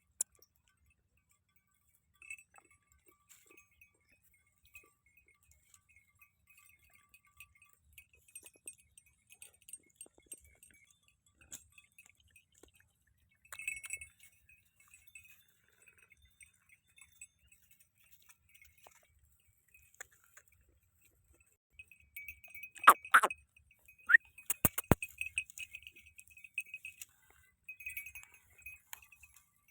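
Small bells on a goat jingling faintly and off and on, with a few brighter clinks. Two sharp knocks come about two-thirds of the way through.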